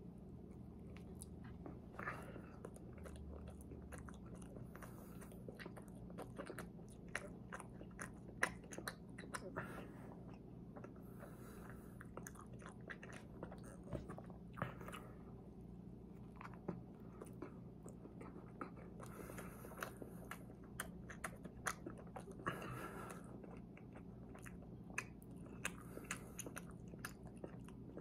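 A person chewing and biting a chocolate-glazed eclair close to the microphone, with many small wet mouth clicks through the chewing.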